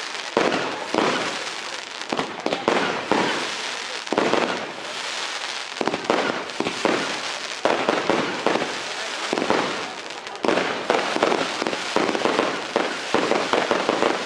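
A 3,200-gram fireworks cake firing: a fast, irregular run of shots and bursts.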